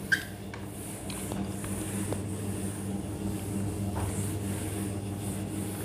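Whiteboard duster rubbing across a whiteboard, wiping off marker writing in a soft, even rustle, over a steady low hum.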